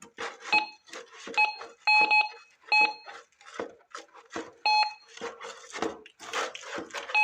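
Metal detector, a Minelab Gold Monster in discrimination mode, giving about six short, identical beeps as its coil is swept back and forth over a target, with scraping noises in between. The beeps signal a non-ferrous target.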